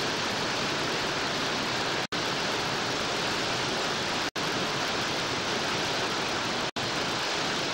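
Steady rushing roar of whitewater in a Belaya River rapid. The sound drops out for an instant three times.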